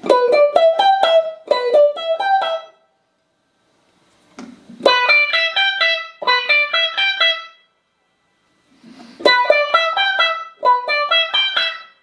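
Electric guitar, a Fender Stratocaster, played through a Boss AW-3 Dynamic Wah and Boss CE-5 Chorus Ensemble into Roland JC-120 amps. The same quick phrase of single picked notes is played three times, with a silent pause of about a second between each.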